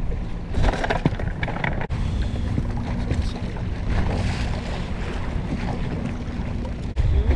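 Wind rumbling on the microphone over the steady running of a small Honda outboard motor at trolling speed, with water washing along the boat's hull. A few light clicks and knocks come about a second in.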